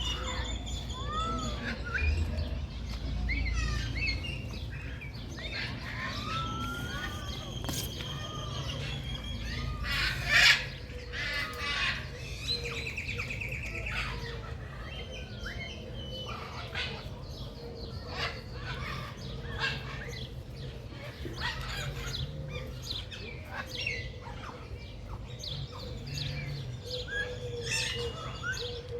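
Many birds chirping and calling over one another, short rising and falling notes with a few quick trills, one call sharper and louder about a third of the way in, over a low steady rumble.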